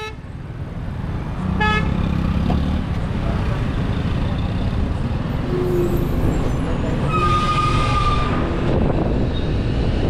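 Road traffic moving off, a steady rumble of engines and wind that swells over the first couple of seconds. A short vehicle horn toots about two seconds in, and a longer horn sounds for about a second and a half near the end.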